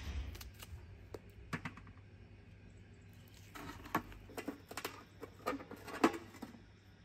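Knife blade scraping the skin of cow legs in short strokes, giving sharp scrapes and clicks: a few scattered strokes at first, then a quick run of them in the second half, the loudest about six seconds in.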